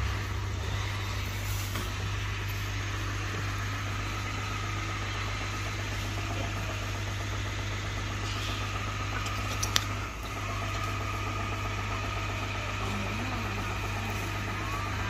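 A steady low mechanical hum over a constant noisy hiss, with one sharp click about ten seconds in.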